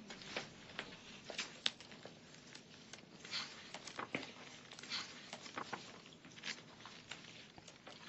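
Faint paper rustling and light taps as the pages of a paper report are leafed through, in brief irregular rustles.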